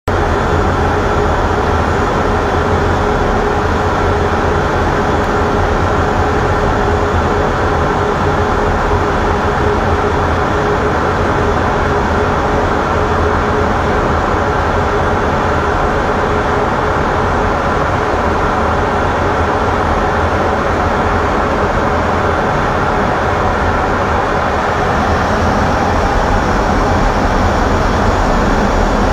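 Steady noise inside a fighter jet's cockpit in flight: engine and rushing air, with a few faint steady tones running through it.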